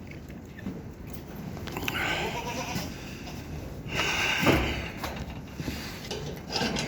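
Goats bleating in a barn: a few separate calls, the loudest about four seconds in.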